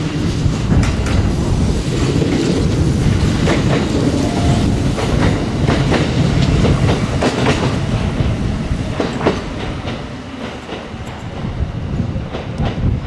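Kintetsu two-car electric local train running past close by, its wheels clacking over the rail joints above a steady rumble.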